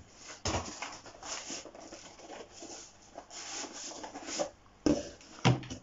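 Cardboard boxes being pulled and slid out of a larger cardboard box: scraping and rubbing of cardboard on cardboard, with a few thumps, two of them close together near the end.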